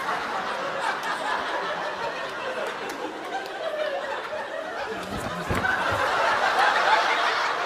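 Studio audience laughing, many voices together, growing louder near the end.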